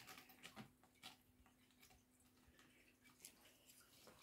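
Near silence: room tone with faint scattered ticks and rustles and a faint steady hum that stops near the end.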